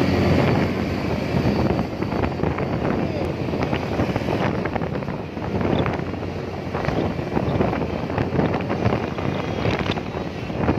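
Road traffic rumbling past, with heavy wind buffeting on the microphone.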